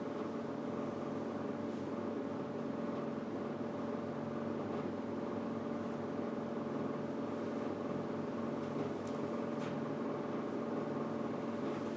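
Steady mechanical room hum with several steady tones, with a few faint marker strokes on a whiteboard near the end.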